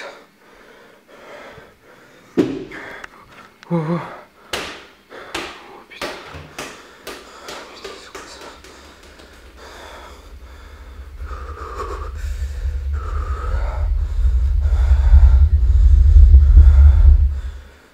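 A person's heavy breathing and gasps, with several sharp sounds in the first seven seconds. Under them a deep rumble grows louder through the second half and cuts off suddenly near the end.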